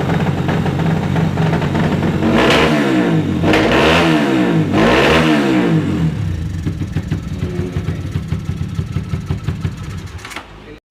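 Honda CB motorcycle's single-cylinder Tiger engine, fed by a PWK Sudco 35 Airstrike carburettor, running. It is revved up and back down three times in quick succession, then drops back to a steady idle that grows quieter toward the end.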